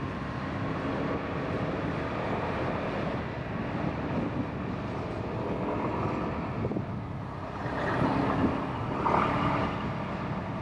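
Motorbike engine running steadily while riding along a road, mixed with road and wind noise; it grows louder for a moment about eight seconds in.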